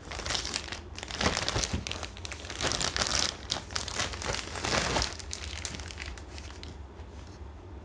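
Thin plastic bag crinkling and rustling in repeated bursts as a basketball shoe is pulled out of it, dying down after about five seconds.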